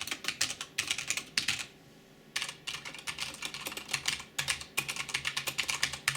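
Typing on a well-worn Cooler Master Storm mechanical keyboard with Cherry MX Red switches: rapid keystroke clicks and clacks, a brief pause about two seconds in, then more typing that stops near the end.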